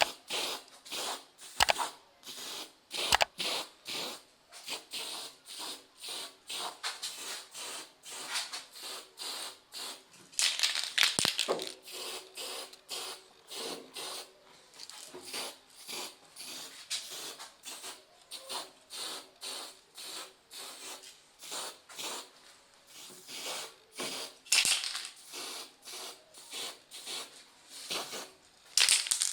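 Repeated short scratchy strokes of hand work on the lamp's parts, about two a second, with a few sharper knocks.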